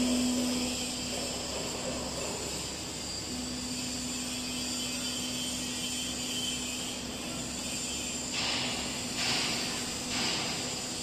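Four-roll CNC plate rolling machine running with a steady hum. Near the end come three short hisses about a second apart.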